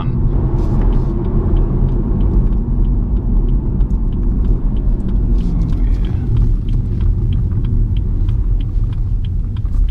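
BMW M140i's turbocharged 3.0-litre straight-six and its tyres heard from inside the cabin as a steady low rumble at a cruise, with no rise in revs. A faint, regular light ticking runs through the second half.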